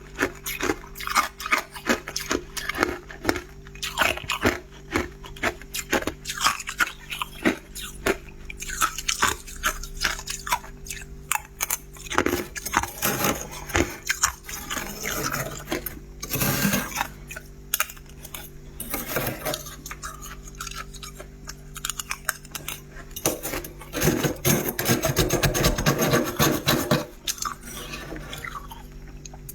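Freezer frost being bitten and chewed: a long run of sharp, crisp crunches, thickening into a continuous crunching stretch near the end, over a steady low hum.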